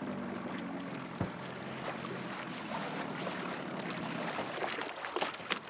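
Small outboard motor running at low speed, a steady hum that fades away about four seconds in, with water splashing and slapping against a hull near the end.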